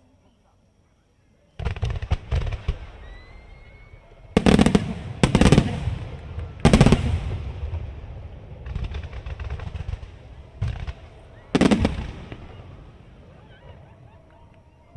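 Aerial firework shells bursting overhead: a quiet moment, then a quick cluster of cracks, four heavy booms spread over about ten seconds, and a stretch of fizzing crackle between them.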